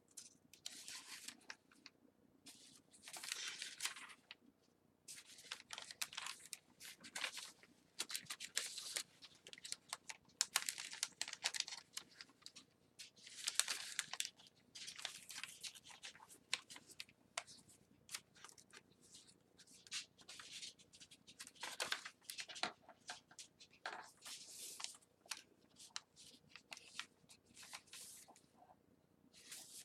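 Paper rustling and crinkling as the pages of a handmade paper journal are turned and handled, in repeated bursts with small clicks between them.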